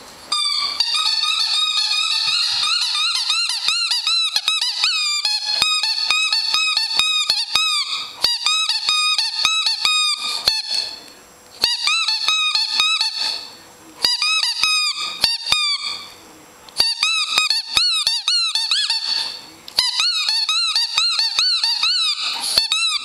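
Dog chewing a squeaky ball, setting off fast runs of high, wavering squeaks several times a second. The runs break off in short pauses every two to three seconds.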